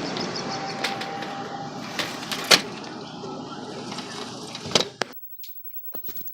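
Steady rush of thunderstorm rain and wind, with a few sharp knocks and clicks. It cuts off suddenly about five seconds in, just after a loud knock, leaving only a few faint clicks.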